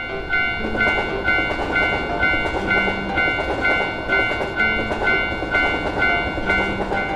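Japanese railroad crossing alarm ringing its "kan-kan" bell about twice a second, over the steady rumble and rattle of a passing train.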